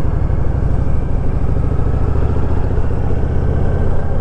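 Honda VTX 1300R's V-twin engine running steadily at a low, even speed as the motorcycle rides along.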